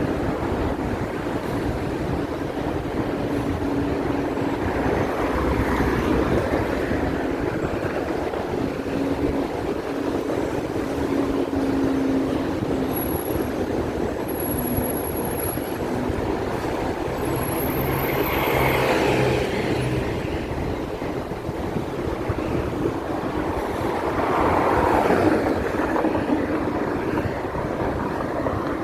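Hong Kong electric tram running along its street rails: a steady rumble of wheels on track with a faint hum, swelling louder twice in the second half.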